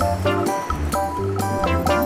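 Background music with a steady beat, pitched melody notes over a bass line.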